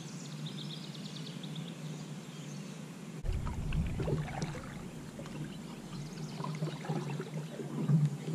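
Kayak paddle strokes splashing in lake water, starting about three seconds in, over a low rumble.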